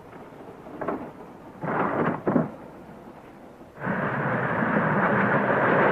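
Two short bursts of noise, then, about four seconds in, the loud, steady rushing rumble of a train running at speed begins.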